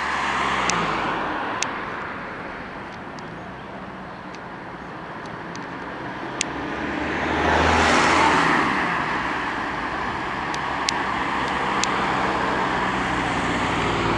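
Steady outdoor traffic noise with one vehicle passing close by, swelling over a few seconds to its loudest about eight seconds in and then fading. A few sharp clicks stand out over it.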